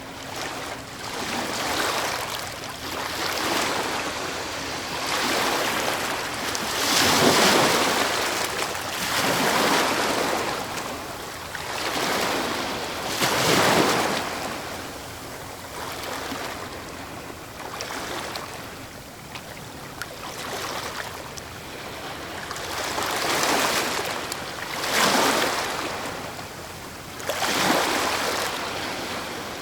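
Ocean waves breaking, a constant rush of surf that swells into a louder crash every few seconds, the biggest about seven, thirteen and twenty-five seconds in.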